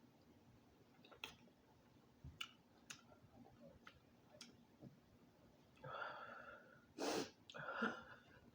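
Quiet eating sounds from a person at a mukbang: a few faint mouth clicks and smacks, then three heavy breaths in the last few seconds, the middle one the loudest and sharpest.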